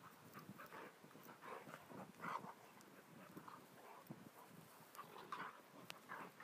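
Two dogs play-fighting, making a string of short, faint dog noises at irregular intervals, with scuffling between them.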